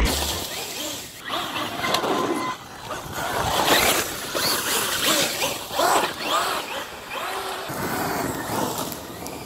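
Electric RC car's motor whining as it is driven off-road, its pitch rising and falling in repeated surges with the throttle, over a rough haze of running noise.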